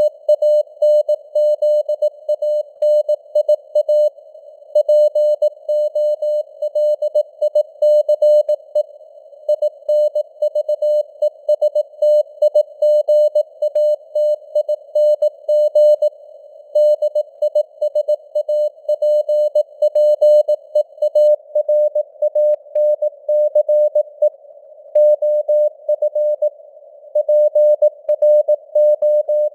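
Morse code sent at 18 words per minute: a single steady mid-pitched tone keyed on and off in dots and dashes, over a narrow band of hiss like a receiver's noise. The signal's strength varies, a simulated QSB fade.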